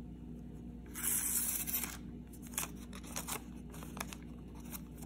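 Freshly sharpened pocket-knife blade slicing through a thermal paper receipt in one stroke of about a second, a paper-cutting test of the new edge, followed by a few light ticks and rustles of the paper being handled.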